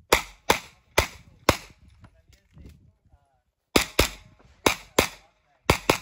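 Pistol-caliber carbine firing ten shots: four about half a second apart, then after a pause of about two seconds three quick pairs, typical of double taps on targets.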